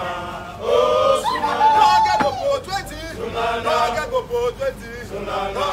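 A group of men's voices chanting a song together, with a loud stretch about a second in where one long note is held.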